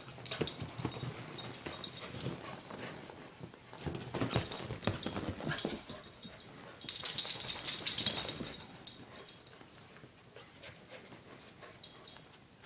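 Puppy playing with a crinkly Luna Bar wrapper: bursts of wrapper crinkling, loudest from about seven to eight and a half seconds in, with the puppy's soft whimpers.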